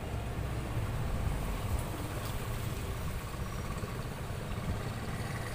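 Steady low rumble of outdoor background noise, with no distinct events standing out.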